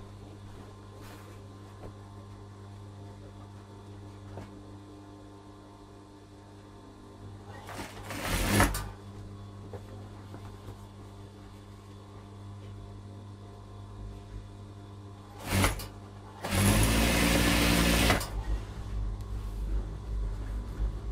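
L818 industrial lockstitch sewing machine stitching in short runs over a steady low hum: a short burst about eight seconds in, a brief one near fifteen seconds, then a longer run of about a second and a half.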